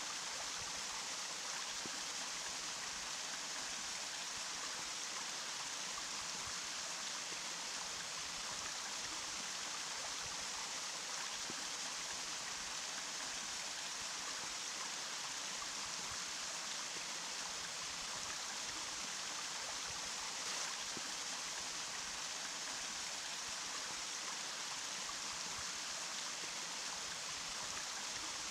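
Running water: a steady, even rush of flowing water, mostly a bright hiss with little low rumble.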